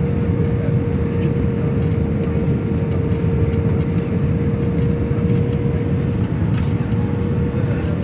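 Steady airliner cabin noise on descent, heard from a window seat over the wing: a constant low rumble of engines and airflow with a steady mid-pitched hum running through it.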